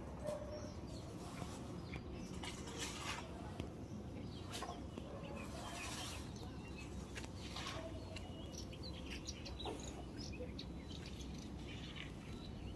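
Birds chirping in short scattered calls over a low steady background rumble.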